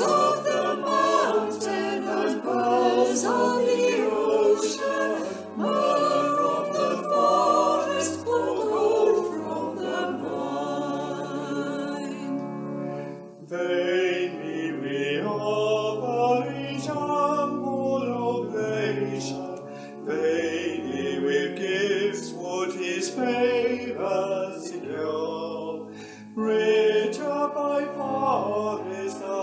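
Choir singing an Epiphany hymn, several voice parts together over steady low sustained notes.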